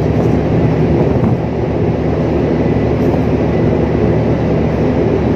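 Large ship's machinery running, a loud steady low drone with a faint steady high tone above it.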